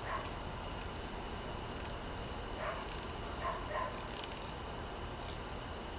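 Faint ticks and scrapes of a pocket knife cutting a flounder fillet along the backbone, a few scattered light clicks over a steady low background hiss.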